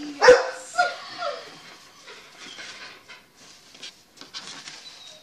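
A dog barks once, loudly, just after the start, then gives a short whine that falls in pitch. Faint rustling follows as paper is handled.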